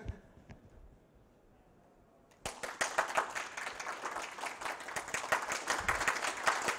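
A near-silent pause, then an audience breaks into applause about two and a half seconds in, the clapping going on steadily.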